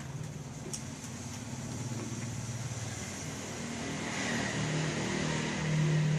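An engine running with a steady low hum that gets louder over the last couple of seconds.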